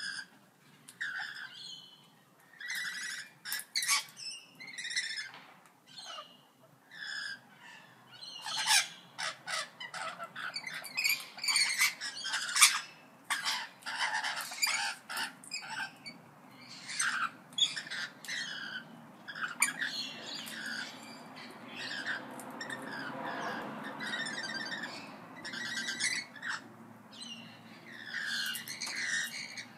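Several parrots squawking and chirping, a continuous run of short harsh calls that overlap one another.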